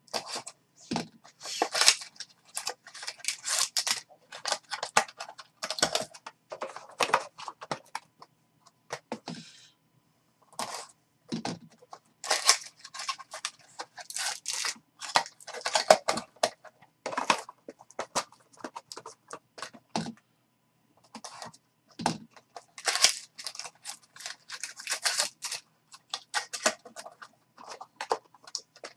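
A utility knife slitting open a trading card box, then cardboard box flaps being pulled apart and foil card packs crinkling and rustling as they are handled, in irregular bursts with a couple of short pauses.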